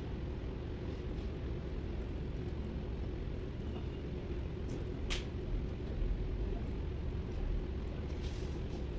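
Steady low machinery hum of a workshop, with one sharp metallic click about five seconds in and a short hiss or scrape near the end, as a hand tool works on the engine's injection pump and valve gear.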